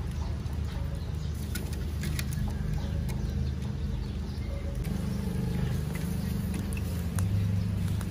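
Steady low hum of the drive motor turning a chain-driven charcoal rotisserie, with scattered faint crackles and clicks. The hum gets a little louder about seven seconds in.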